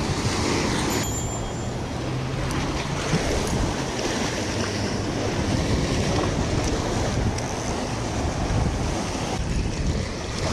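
Surf washing against the rock jetty, with wind buffeting the microphone in a steady low rumble.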